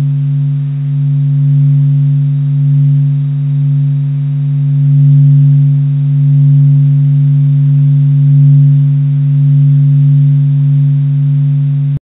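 A deep, steady drone presented as the sound of the Sun, a space-data sonification, swelling and fading slowly in loudness.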